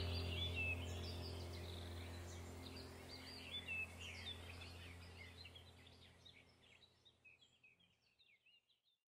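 Background nature-sounds track: birds chirping over a low steady drone, fading out to silence near the end.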